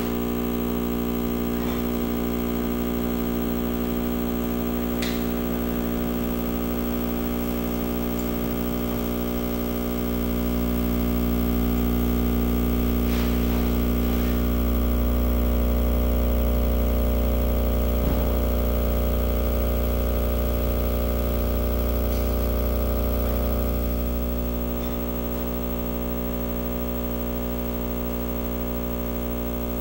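Live electronic drone of many steady, hum-like tones. Its low end swells about a third of the way in and falls back again near the end.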